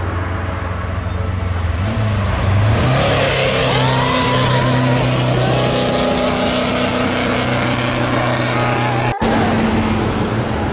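Sports car engines running as cars drive past on the road, one engine note rising as it accelerates about two to three seconds in. A sudden cut near the end switches to another car's steady engine drone.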